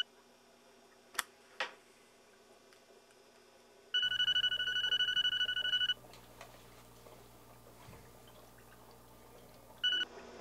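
Mobile phone ringing: a pulsing electronic ring for about two seconds a few seconds in, and a brief burst of it near the end. Two sharp clicks about a second in.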